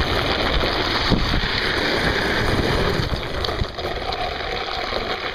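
Wind blowing across the camera microphone: a steady rushing rumble that eases a little after about three seconds.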